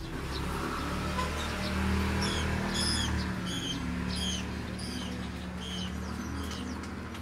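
A small bird chirping over and over, short high notes about two a second, over a steady low hum.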